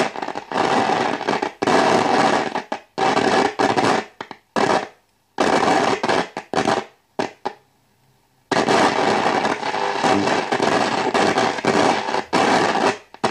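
Static hiss and crackle from a DeWald 310 valve radio's loudspeaker at full volume. It cuts in and out abruptly in many short bursts, then runs unbroken through most of the second half, as the tuning capacitor is moved. The repairer takes the crackle for a dirty or faulty variable capacitor or a loose contact.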